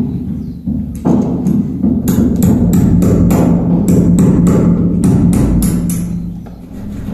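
Hammer tapping on a wall fixing during electrical wiring work: quick, light knocks about three to four a second, starting about two seconds in and stopping near the end. A steady low hum runs underneath.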